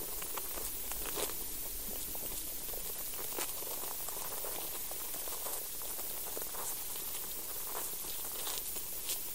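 Underground soil recording: a steady hiss with scattered faint clicks and crackles, the sounds of life and processes moving in the soil.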